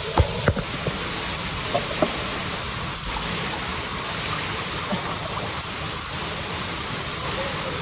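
Steady rush of flowing stream water, with a few short sharp knocks in the first two seconds.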